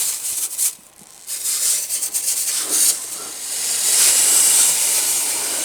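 Snow melting on a hot lawn mower exhaust muffler, hissing and sizzling into steam. The hiss starts about a second in and grows louder over the last couple of seconds.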